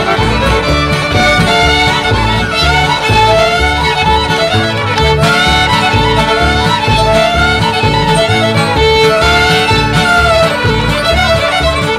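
Several fiddles playing a lively old-time mountain dance tune together, backed by acoustic guitar and upright bass keeping a steady beat.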